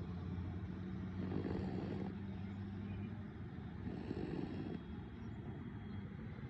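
Snoring: two drawn-out snores about three seconds apart, over a steady low hum that fades about three seconds in.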